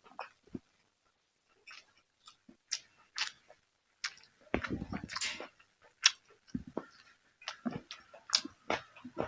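A person chewing food close to the microphone, with sharp mouth clicks and short crunches. It is sparse at first and busier from about halfway on.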